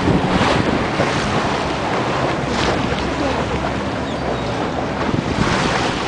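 Wind blowing hard across the microphone over the rushing wash of sea water around a small boat.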